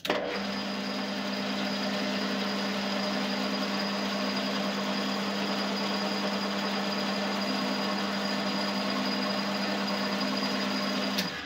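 Metal lathe running at a steady speed, a steady hum over a whirring noise, as its chuck spins an aluminium bar and a centre drill is fed into the bar's end. The sound starts suddenly and cuts off shortly before the end.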